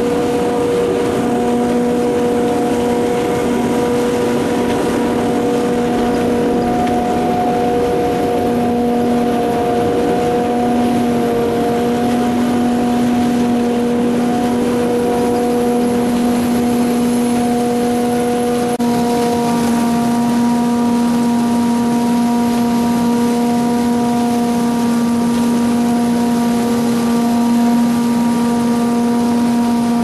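Pik Rite 290 tomato harvester running: a loud, steady machine drone with a held hum in it. The hum shifts slightly about two-thirds of the way through.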